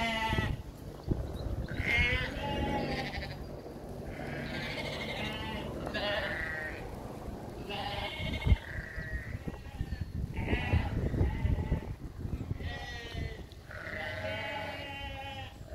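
A flock of sheep and lambs bleating, wavering calls coming every second or two, some overlapping. A single sharp knock sounds about eight and a half seconds in.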